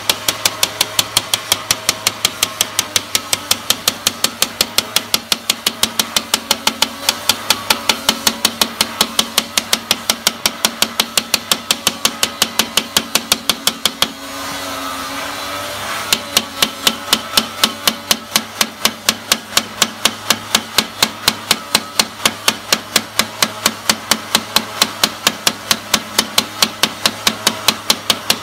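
Rapid, even tapping of a ball-tipped metal rod against a scored glass pane, about four taps a second, knocking the score lines through to break out a round hole for an exhaust fan. The tapping stops for about two seconds midway, then resumes.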